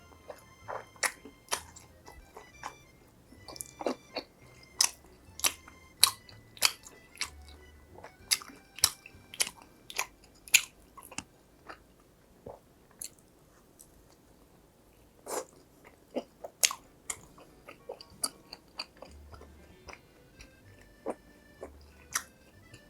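Crunching bites and chewing of crispy fried food, irregular sharp crunches a few times a second with a quieter stretch in the middle.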